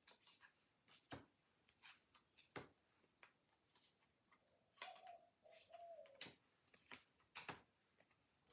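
Faint clicks and taps of thick tarot cards being handled, with a bird giving two short calls in the background about five and six seconds in.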